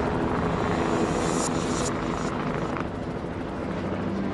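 Light helicopter hovering low, its rotor and turbine making a steady, dense noise.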